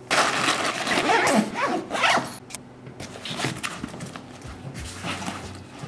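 Backpack zipper being pulled shut in a rasping zip lasting about two seconds, followed by a few shorter rustles and scrapes as the bag is handled and lifted.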